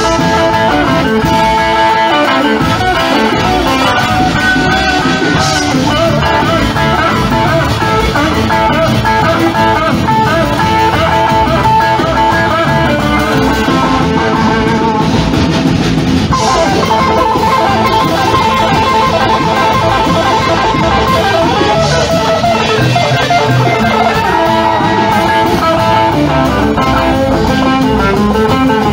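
Live rockabilly band playing an instrumental stretch with no vocals: electric guitar lines over acoustic guitar, upright bass and drums.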